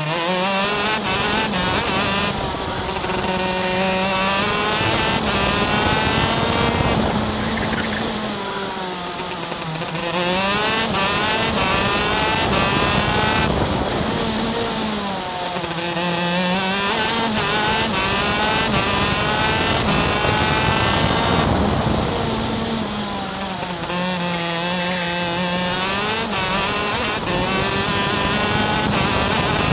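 Superkart's two-stroke racing engine at high revs, heard from on board. It climbs in pitch along the straights and drops each time the kart slows for a corner, three or four times over.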